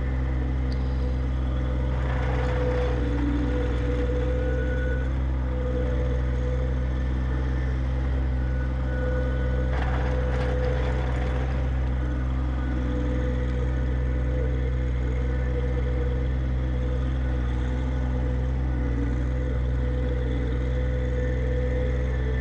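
John Deere 1025R subcompact tractor's three-cylinder diesel engine running steadily under work. Two brief bursts of noise rise over it, about two seconds in and again about ten seconds in.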